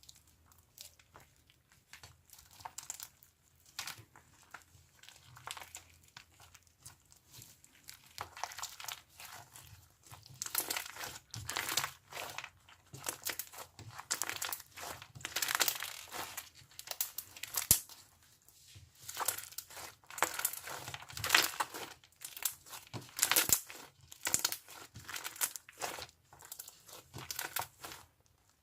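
Slime being squeezed, pressed and stretched by hand, letting out rapid crackling pops and clicks of trapped air bubbles. It starts sparse and quiet, then grows busier and louder about a third of the way in.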